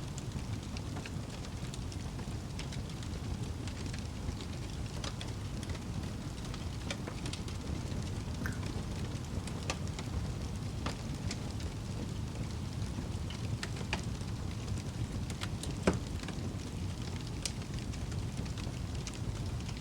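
Fireplace fire crackling: a steady low rumble with scattered small crackles and one louder pop about sixteen seconds in.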